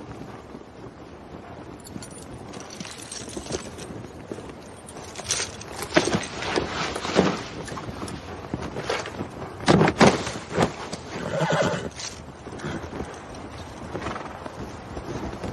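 Horses whinnying several times, the loudest calls about six and ten seconds in, with hooves stepping.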